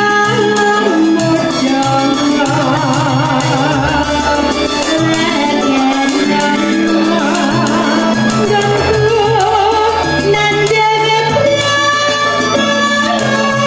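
A woman singing with a wavering vibrato over live keyboard accompaniment with a steady bass line.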